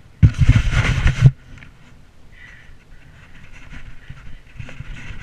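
A loud rush of noise on the camera microphone for about a second, then the low rumble and small rattles of a mountain bike setting off over rough grass, growing louder toward the end.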